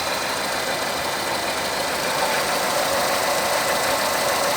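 Renault Mégane III's K4M 1.6-litre petrol engine idling evenly, fitted with a new cam phaser and phaser control valve, without the phaser knock. It gets a little louder about halfway through.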